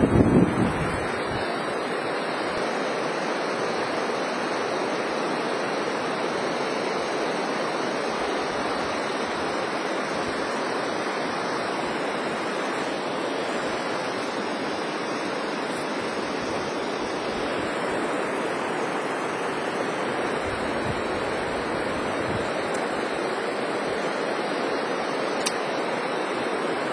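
River water rushing steadily over rocky rapids, a constant even noise.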